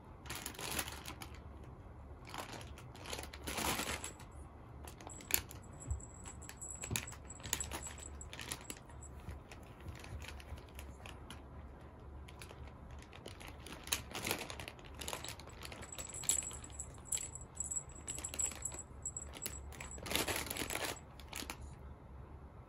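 Pets at play: intermittent scratching, rustling and clicking of a cat's claws and body against a cardboard scratcher bed, mixed with a dog gnawing a rope toy. Short bursts come and go, the strongest a few seconds apart.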